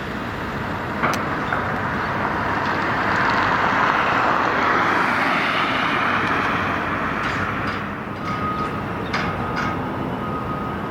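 Road traffic noise, with a vehicle passing close that swells to a peak about four to five seconds in and then fades. A thin high tone comes in near the end.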